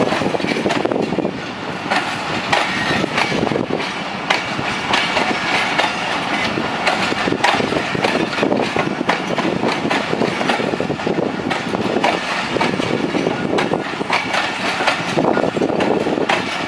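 Passenger train coaches rolling past on the track, wheels clattering over rail joints in a steady stream of clicks and rumble.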